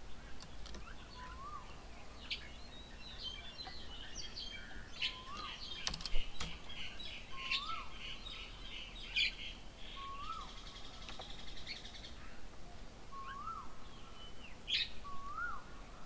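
Birds calling and chattering: a short rising whistle repeats about every two seconds, over a busy burst of chirps and chatter through the middle. There is one sharp click about six seconds in.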